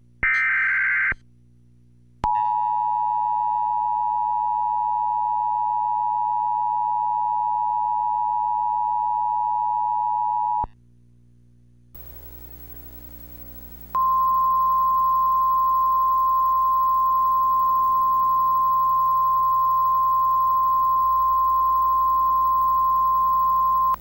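Emergency Alert System broadcast tones: the last of the SAME header data bursts, a short harsh buzzing screech, ends about a second in. Then the two-tone EAS attention signal (853 and 960 Hz together) sounds steadily for about eight seconds. After a short gap with low hum, a single steady tone, the NOAA Weather Radio 1050 Hz warning alarm, sounds for about ten seconds.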